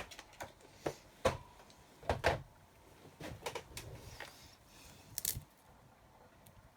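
A few light, scattered knocks and clicks of acrylic stamping blocks and stamps being picked up and set down on a craft desk.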